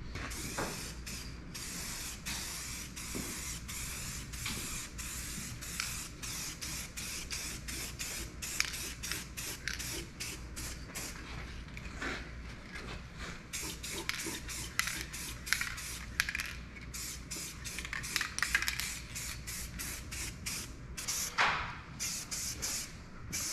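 Krylon Farm & Implement aerosol spray paint can hissing in repeated short and longer bursts as paint is sprayed onto the metal mailbox.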